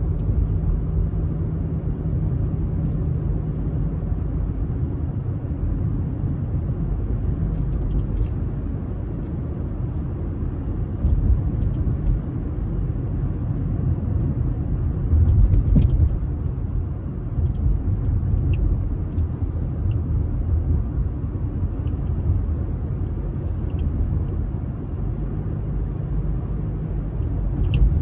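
Steady low rumble of road vehicle noise, swelling a little now and then, with a few faint clicks.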